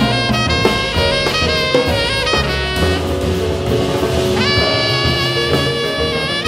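Live jazz band: a tenor saxophone plays a melodic solo line in sustained, shifting notes over upright bass and drum kit.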